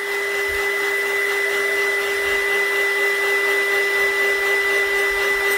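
Heat gun blowing steadily, a constant rush of air with a steady hum and a high whine, drying a fresh layer of shimmer ink spray on a tumbler.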